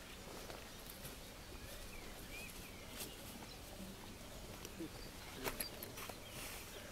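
Faint rural outdoor ambience with a few short bird chirps and some light clicks and knocks, as of someone walking off along a dirt track.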